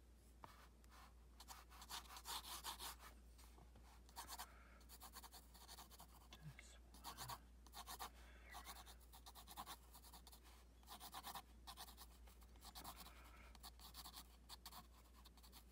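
Graphite pencil sketching on paper on a clipboard: faint, scratchy pencil strokes in quick groups of short back-and-forth lines, with brief pauses between groups.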